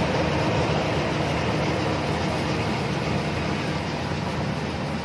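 Rice combine harvester running steadily, its engine and machinery making a dense mechanical noise that eases slightly in level.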